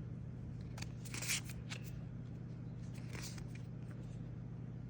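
Magic: The Gathering cards being flipped through by hand: short papery swishes of card sliding over card about a second in and again after three seconds, with a few small clicks, over a steady low electrical hum.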